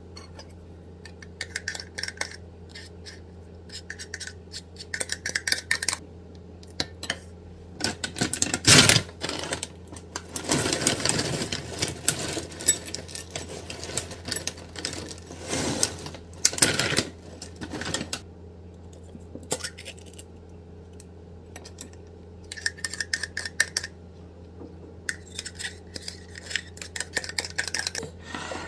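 A metal spoon scrapes yogurt from a plastic cup and clinks against a glass dessert bowl in short clusters of small clicks. In the middle, a plastic cereal bag crinkles and cereal rattles as it pours into the bowl. A steady low hum runs underneath.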